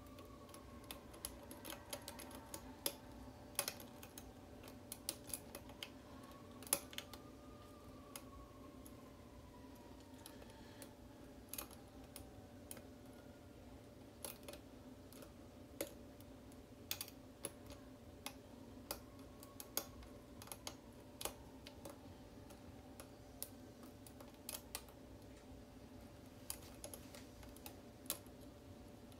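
Lock pick clicking and scraping on the pin stack inside a Schlage SC4-keyway pin-tumbler lock during picking: irregular light clicks, some sharper than others, over a faint steady hum.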